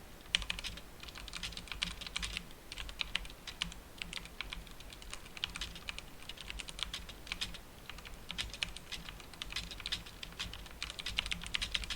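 Typing on a 1stPlayer DK5.0 Lite mechanical keyboard with linear red switches: quick flurries of keystrokes broken by short pauses.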